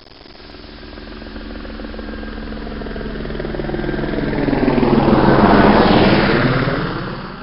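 An aircraft flying past: its engine noise grows steadily louder, peaks about five to six seconds in with a sweeping whoosh, then fades away.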